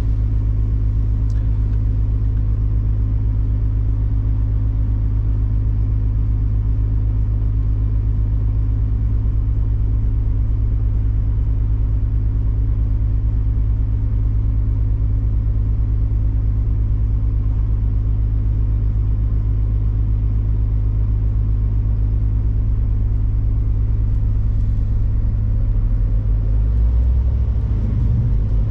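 Large truck's diesel engine running steadily, a deep even drone heard from inside the cab. Near the end the low drone shifts and grows uneven.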